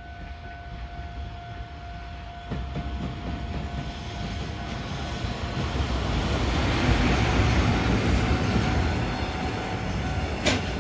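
A train passing close by, its rumble building over several seconds and loudest about seven seconds in.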